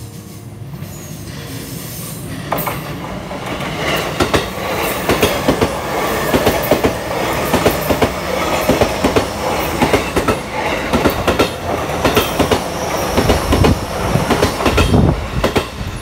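JR East E233-series electric train passing close by, its wheels clacking over rail joints in a rapid run of clicks. It builds from about two seconds in and cuts off just before the end.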